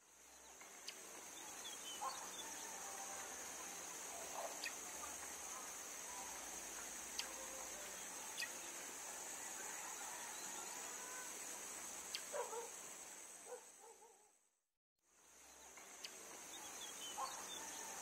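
Outdoor ambience of insects keeping up a steady high-pitched chirring, with scattered short bird chirps over it. The sound fades out briefly about fifteen seconds in and comes back.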